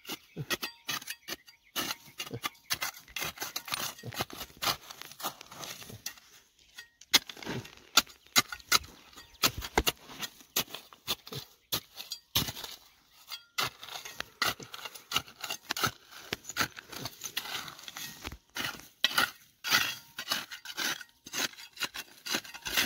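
Digging in stony ground: a metal tool and loose stones clink and knock against each other in an irregular run of sharp hits, several a second, with a few louder strikes.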